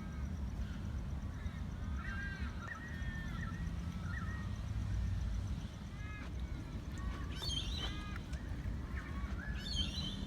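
Several birds calling outdoors in short, arched, repeated chirps, with a burst of higher chatter twice in the second half, over a steady low rumble.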